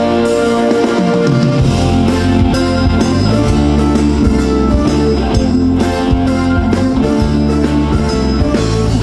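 Live rock band playing an instrumental intro on electric guitars, bass guitar and drum kit. The low bass comes in about a second and a half in.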